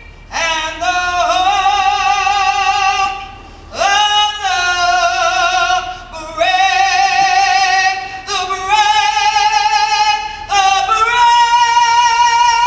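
A woman singing long, held notes with vibrato, in phrases of a few seconds each with brief breaths between them.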